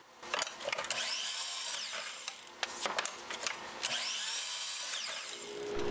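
Miter saw cutting hard maple slats to length twice: each time the blade spins up, cuts through and winds down. Short clicks and knocks of handling come between the cuts.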